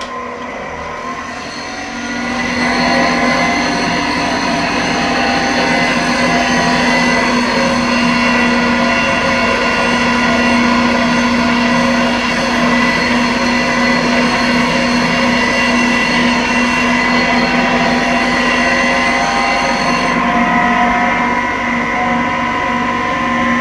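A powered sanding machine running steadily, with a motor whine and grinding hiss as graphite is shaped against the abrasive. The sound grows louder about two seconds in.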